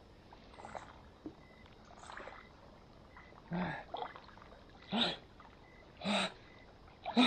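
Water splashed in four short bursts over the last four seconds, as a person washes in a cold reservoir.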